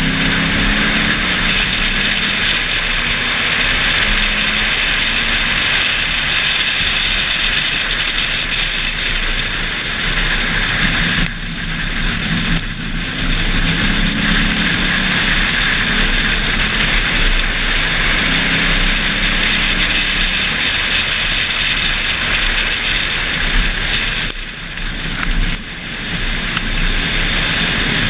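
2008 Ford Mustang GT's 4.6-litre V8 at speed, buried under heavy wind rush on an exterior-mounted camera's microphone. The engine note climbs and drops repeatedly as the car accelerates and lifts, and eases off briefly twice, once around the middle and once near the end.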